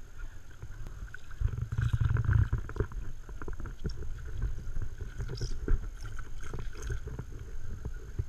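Water splashing and lapping against a paddle board as a hooked striped bass thrashes at the surface beside it, with scattered knocks and clicks from gear handled on the board. A low rumble swells about one and a half seconds in and eases off a second later.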